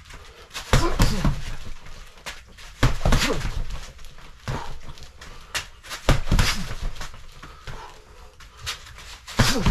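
Gloved punches thudding against a BOB Century freestanding striking dummy, coming in short clusters of hits about every one to two seconds.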